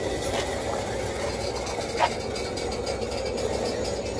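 A loaded container freight train's wagons rolling slowly past at walking pace: a steady rumble of steel wheels on the rails, with a single short knock about two seconds in.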